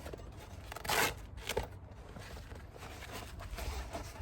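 Packaging and a fire-pit case being handled during unboxing: a brief rasping rustle about a second in, then quieter handling noises.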